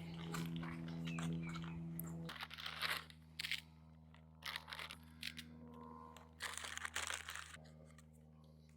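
A steady low engine hum that drops in level a couple of seconds in, with irregular crunching sounds over it.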